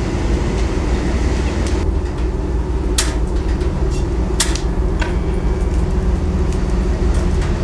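Hand-hammered copper being worked: a few sharp, separate hammer blows on the copper, the clearest about three seconds in and another about a second and a half later, over a steady low rumble.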